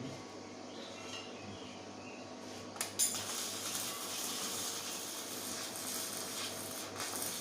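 Metal pieces clinking: two sharp knocks close together about three seconds in, over a steady low workshop background noise.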